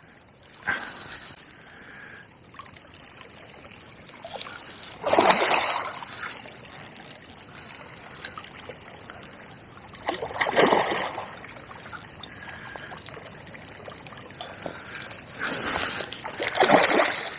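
Hooked barbel splashing and thrashing at the surface close to the bank in three loud bursts, about five seconds apart, over the steady rush of the river.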